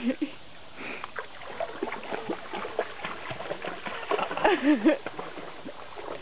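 A Vizsla wading through a creek, a steady run of small, irregular splashes and sloshes of water. A person's voice sounds briefly about four and a half seconds in.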